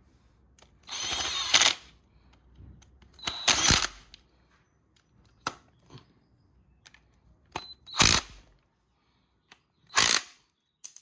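A handheld power tool, drill or impact driver type, run in four short bursts, the first the longest, with small metallic clicks of tools and parts between them, as bolts are run in on the engine.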